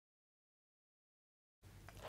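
Silence, then faint room tone with a low steady hum cutting in about three-quarters of the way through.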